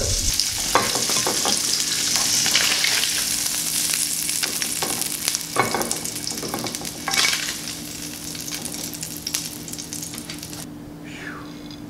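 Jack crevalle fillets sizzling in hot butter and olive oil in a skillet as they are lifted out with a spatula, with a few scrapes and knocks of the spatula against the pan. The sizzle dies down and stops near the end, over a steady low hum.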